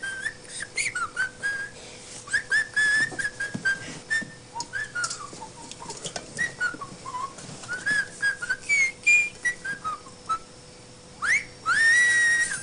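A bouncy tune whistled in quick short notes that hop up and down in pitch. Near the end it swoops upward into one long held note.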